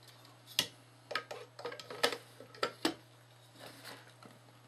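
Sharp clicks and knocks of an LED board and floodlight housing being handled and turned over, about half a dozen taps in the first three seconds, then a few faint ones. A low steady hum runs underneath.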